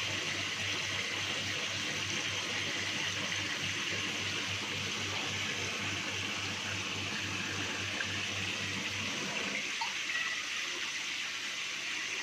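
Water pouring and splashing steadily into a fish tank from the inlet pipe of a recirculating aquaculture system. A low hum underneath stops about nine seconds in.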